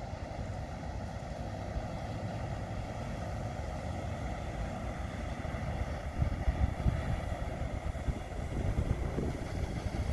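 Inland cargo barge's diesel engine running steadily as the vessel passes close by along the canal, with wind buffeting the microphone in gusts, loudest about six to seven seconds in and again near the end.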